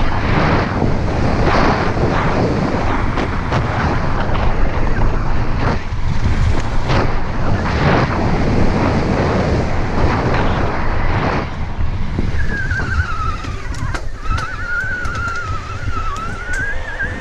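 Wind buffeting a moving camera's microphone, with knocks and rattles from riding over rough ground. About twelve seconds in the noise eases and a high, wavering squeal sounds, rising near the end.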